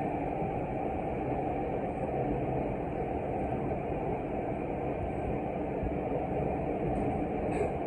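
Running noise of a Tokyu 5050 series electric train, heard from inside the passenger car: a steady rumble of the train moving along the track. A couple of faint clicks come near the end.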